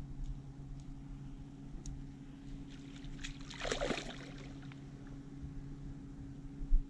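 A large hooked fish thrashing and splashing at the surface beside the boat, a short splash about three and a half seconds in, over a steady low hum. A brief low thump near the end.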